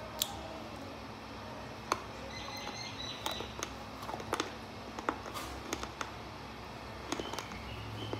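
Slate pencil being bitten and chewed, giving a run of sharp, irregularly spaced crunches.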